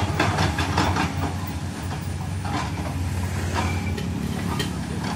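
JCB tracked excavator's diesel engine running steadily, with a quick run of metal clanks in the first second and a few single clanks later.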